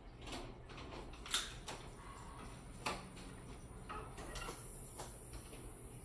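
A few soft knocks and rustles of a person shifting their hands and knees on a foam exercise mat, the sharpest about a second and a half in and another near the middle, over a faint low room hum.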